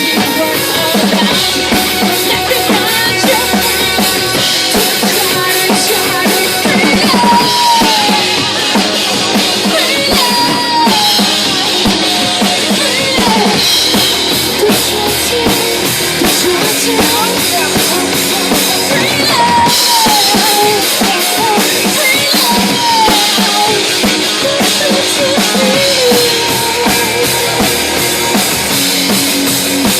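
Instrumental break in a rock song: a full drum kit with kick and snare keeps a steady beat under guitars, while a lead line plays bending, sliding notes.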